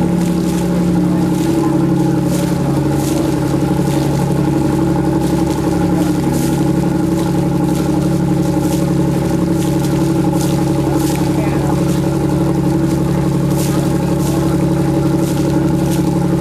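A boat's engine running steadily underway, a constant drone with several steady low tones, with brief hissing swishes every second or so over it.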